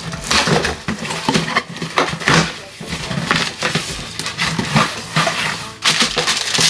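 Cardboard shipping box being pulled open by hand: irregular tearing, crackling and rustling of cardboard in a quick string of short sounds.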